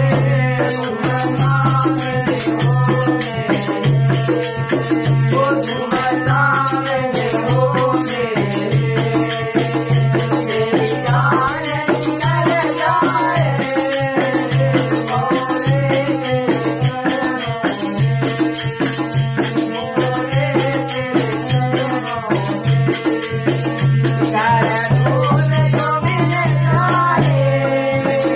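Live devotional bhajan music: a harmonium playing the melody over a dholak drum beat, with small hand-held percussion jingling steadily in rhythm and voices singing in places.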